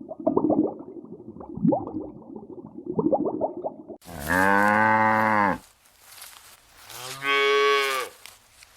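A cow mooing twice: one long moo starting suddenly about four seconds in, and a shorter one near the end. Before it, choppy low-pitched animal sounds are cut off abruptly.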